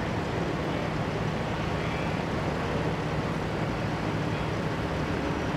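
Heavy-haul tractor truck's diesel engine running steadily with a low hum as the truck crawls slowly past, over a steady street noise.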